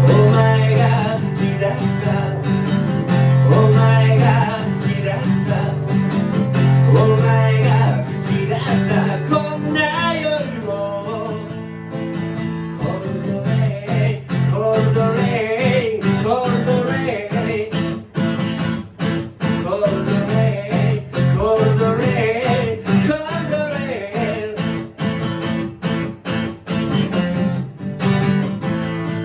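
Live song: an acoustic guitar strummed in a steady rhythm, with a solo voice singing over it.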